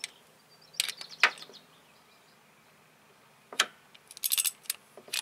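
Hand tools at work on the timing-belt tensioner pulley bolt: scattered sharp clicks and knocks, a pair about a second in, a single one past three and a half seconds, and a quick run of clicks just after four seconds, as a socket wrench is set on and turned.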